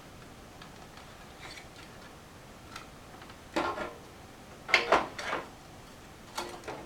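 Clicks and knocks of a computer case fan and its cable being handled and fitted into a desktop case, in a few short clusters, the loudest about three quarters of the way through.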